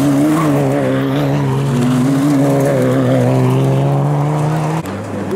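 Suzuki Swift rally car engines at high revs as the cars pass at speed, a steady engine note that wavers slightly. The sound cuts off abruptly near the end.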